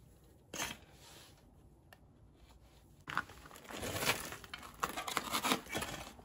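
A cloth rag rustling and rubbing as it wipes excess grease off a steel swing arm and its bushings. There is a brief rustle about half a second in, then irregular wiping and scrubbing from about three seconds in.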